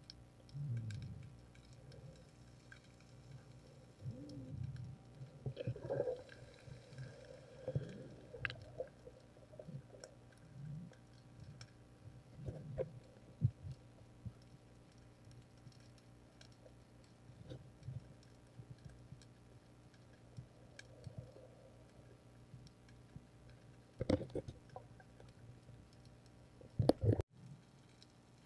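Muffled underwater noise as a diver's camera moves through the water: irregular low rumbles and knocks with scattered faint clicks, and a couple of sharper, louder knocks near the end.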